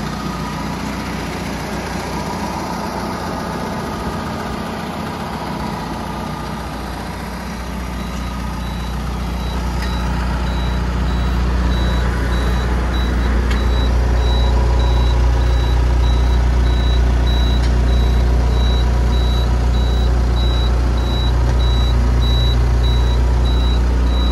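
Diesel engine of a Merlo DBM 3500 self-loading concrete mixer idling steadily, growing louder from about eight seconds in. A high electronic beeper starts at the same time and pulses about twice a second.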